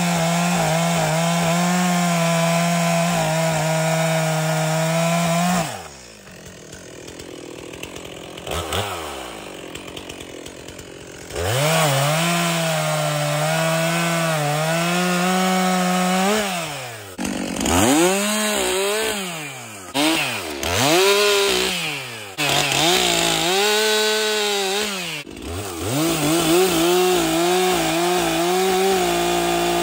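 Stihl MS 362 two-stroke chainsaw bucking a log into firewood rounds. It is held at full throttle through a cut, drops to idle about six seconds in, and revs up again for another cut about halfway through. Later its pitch rises and falls several times before it settles into a steady cut near the end.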